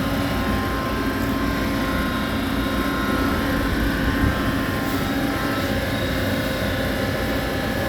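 Steady mechanical drone of running machinery, a constant hum with several held tones over a low rumble.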